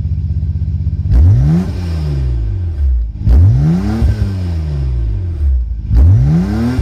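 Nissan Skyline GT-R R33's RB26DETT twin-turbo straight-six idling, then revved three times: about a second in, near the middle and near the end. Each blip climbs quickly and falls back to idle.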